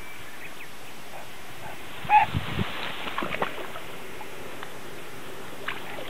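Tall grass rustling and swishing as a dog and its walker push through it. About two seconds in there is one brief, loud, pitched call, followed by a second or so of busier rustling and trampling.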